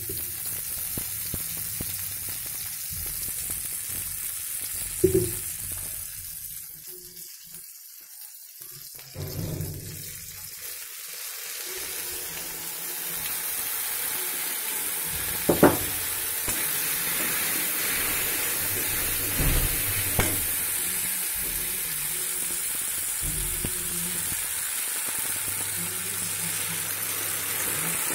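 Chopped onions, tomatoes and peas sizzling in a wok over a gas flame while a metal spoon stirs them, knocking sharply against the pan a few times. The sizzle dies down for a few seconds near the middle, then picks up again.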